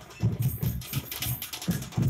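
Drums beaten in a fast, steady rhythm of about four to five strokes a second, with sharp high clashes over the beat.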